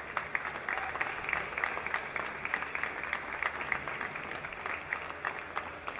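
A small crowd applauding: many separate hand claps that ease off near the end.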